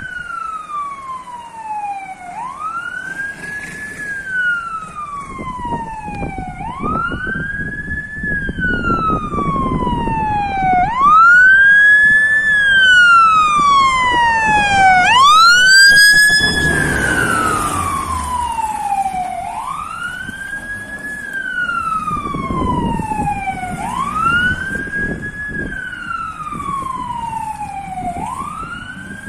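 Fire engine's siren sounding a wail that rises quickly and falls slowly, about once every four seconds. It grows loudest as the Scania P410 fire truck passes about halfway through, with its diesel engine heard running under the siren, then fades.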